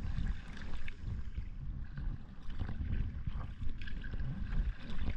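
Kayak paddle strokes in calm sea water: repeated dips and splashes with water dripping off the blades, over an uneven low rumble.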